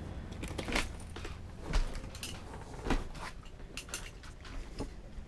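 Three footsteps thudding down a boat's cabin steps about a second apart, with light clicks and clinks in between over a low steady hum.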